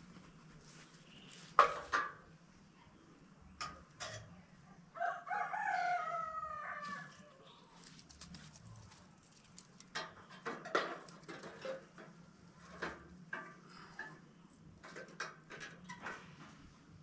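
A rooster crows once, about five seconds in, a drawn-out call that falls in pitch. Around it come sharp snaps and knocks of dry sticks and stalks being broken and handled; the loudest snap is near the start.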